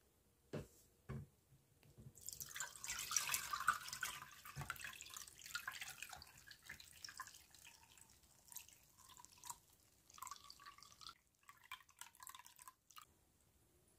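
Hawthorn blossom infusion poured from a glass bowl through a plastic mesh sieve into a glass jug: two light knocks at first, then a splashing pour that tapers off into trickles and drips.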